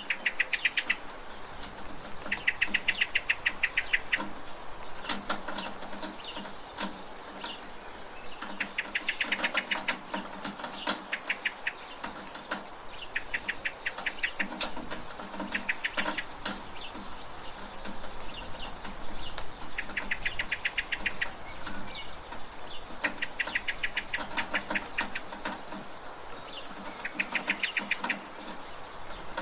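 Birds singing: a rapid trill about a second long repeats every few seconds, over high thin chirps and scattered sharp ticks. A low hum comes and goes underneath.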